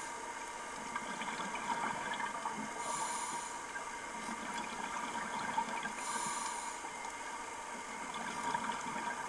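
Underwater ambience picked up by a dive camera: a steady hiss with faint crackling, broken twice by a short, high hiss from the diver breathing through a scuba regulator.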